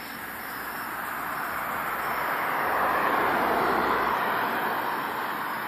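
A sedan driving past on the road, its sound swelling to its loudest about three to four seconds in, then fading as it moves away.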